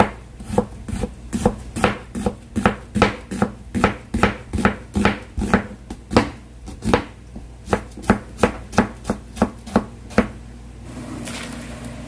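Kitchen knife slicing an onion thinly on a cutting board: a steady run of sharp chopping knocks, about three a second, that stops about ten seconds in. A faint steady hiss follows.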